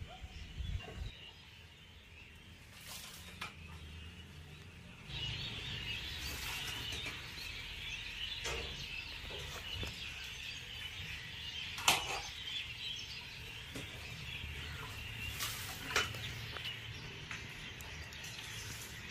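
Large-batch cooking: a steady, high crackling hiss sets in about five seconds in, with a few sharp knocks, the loudest about twelve and sixteen seconds in.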